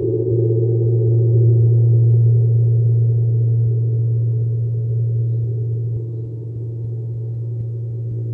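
Large gong played with a mallet, giving a sustained deep hum with many overtones. It swells over the first couple of seconds and eases back a little after about six seconds.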